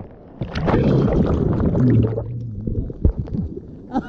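Surf water churning and sloshing, low and muffled, with a few knocks about three seconds in.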